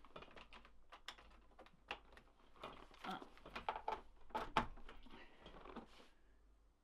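Scattered light clicks and knocks of a laptop and its charger plug being handled while the repaired charging port is plugged in, with the sharpest knock about four and a half seconds in, then quieting near the end.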